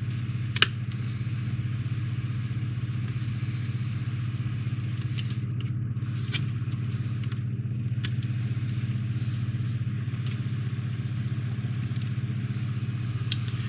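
Light clicks and scrapes of plastic model-kit parts being fitted together and small screws driven in by hand, with one sharp click about half a second in, over a steady low hum.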